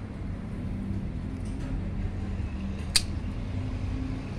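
Hand pruning shears snipping through a thin woody mulberry branch once, a single sharp click about three seconds in, over a steady low rumble.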